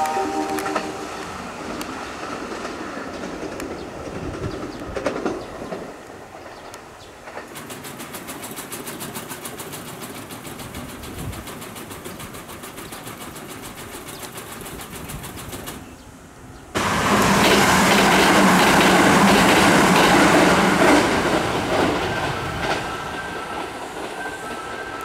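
Kintetsu Osaka Line train passing through the station without stopping. It is fairly quiet at first, turns suddenly loud about 17 seconds in as the train rushes past close by, then slowly fades.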